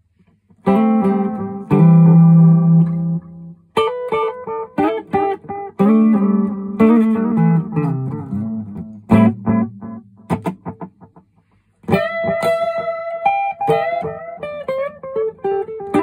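Electric guitar, a PRS SE Custom 24, played through an MXR Carbon Copy analog delay with its modulation switched on and into a Vox AC30 amp. Chords for about three seconds give way to quick single-note lines. After a brief gap about eleven seconds in comes a ringing held note and a short lick.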